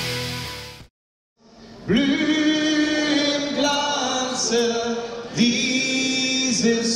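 Rock music with drums fades out within the first second, and after a short silence a national anthem begins: voices singing a slow melody together in long held notes.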